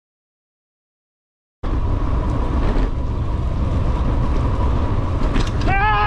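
Silence for about a second and a half, then steady wind buffeting on the microphone and road rumble from a bicycle ride. Near the end a man gives a loud, drawn-out yell, held for about a second.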